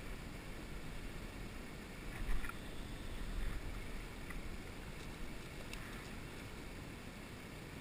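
River current flowing past, with low wind rumble on the microphone. A few faint clicks about two seconds in, the loudest moment.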